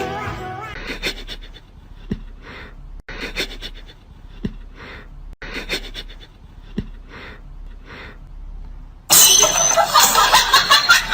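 An animal's short breathy puffs, about one a second, like panting or sniffing. A much louder, dense sound cuts in abruptly about nine seconds in.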